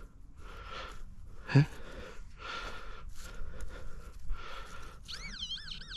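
Loose soil being scraped and sifted in a dug hole in repeated short scrapes, with a brief hum of voice about a second and a half in. Near the end a metal-detecting pinpointer starts sounding, its tone swooping up and down as it nears a buried coin.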